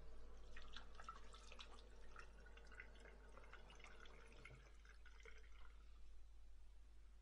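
Faint water dripping and splashing into a bathroom sink, a dense patter of small drops that stops about five and a half seconds in.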